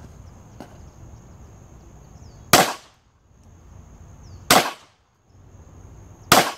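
Three single shots from a CZ 83 pistol in .32 ACP (7.65x17mm), about two seconds apart.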